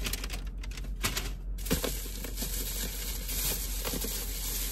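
A paper takeout bag rustling and crinkling as food containers are handled and pulled out of it, with a few sharp clicks and crackles in the first second and a half.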